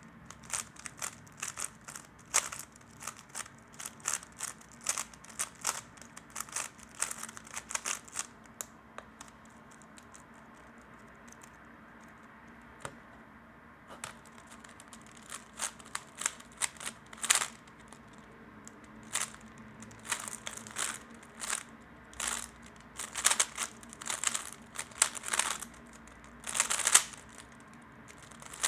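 3x3 speedcube being turned fast by hand, its plastic layers clicking and clacking in quick flurries. It goes quiet for about five seconds just before the middle, then the turning resumes with louder bursts.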